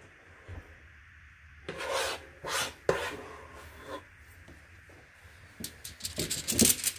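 Spoon scraping thick no-bake cookie mixture of oats and chocolate: a few rasping strokes about two seconds in, then a quick run of scrapes and taps near the end.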